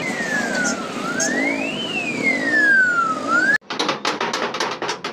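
A siren wails over street traffic noise, its pitch falling, rising, falling and rising again. It cuts off abruptly about three and a half seconds in, and rapid hammering on sheet metal follows, about four blows a second, as a dented truck body is beaten out.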